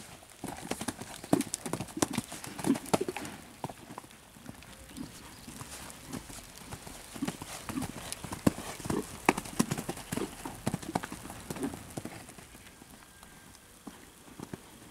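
Horse cantering and jumping on sand arena footing: soft, irregular hoofbeat thuds, quieter near the end as the horse moves farther off.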